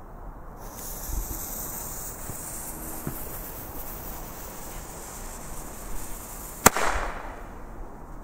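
Lit fuse of a Weco Flash Bang firework tube hissing for about six seconds, then one sharp loud crack as the tube fires its shell. A bigger bang, the shell bursting with an echoing tail, starts right at the end.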